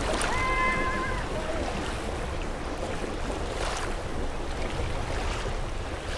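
Steady rush of flowing river water, with a low wind rumble. Just after the start comes a brief high call lasting under a second.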